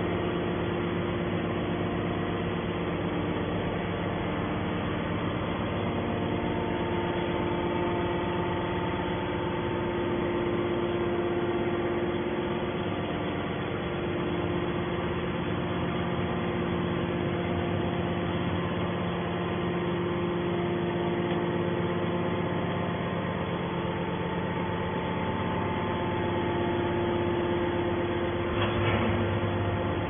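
Hydraulic scrap metal baler's power unit, electric motor and pump, running steadily: a level hum made of several constant tones, with a short change near the end.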